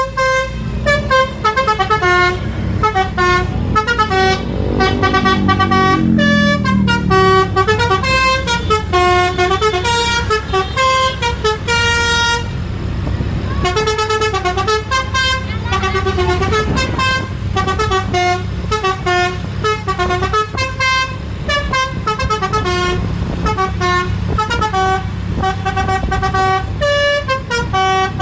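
Basuri 'telolet' multi-tone bus horn playing quick melodic runs of short notes over and over, with a bus engine running underneath.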